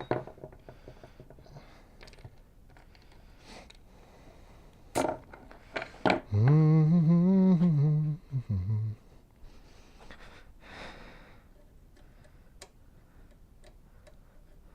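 A man humming a short wavering tune for about two seconds, near the middle, with a few brief hummed notes after it. A few light clicks come just before the humming.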